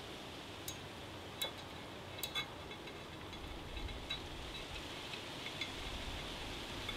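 Light metallic clicks of a locking nut being turned by hand onto the end of a threaded metal rod: a few clinks in the first two and a half seconds, then fainter ticks, over a steady low hiss.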